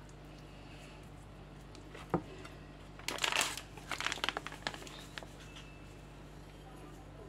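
Plastic bag of semolina crinkling as it is handled, in short bursts of rustling about three to five seconds in, with a single sharp click about two seconds in.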